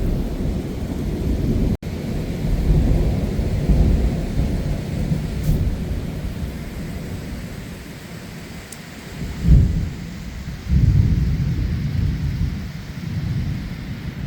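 Thunder rumbling on and off over heavy rain, with a sudden louder clap about two-thirds of the way through followed by another swell of rumble.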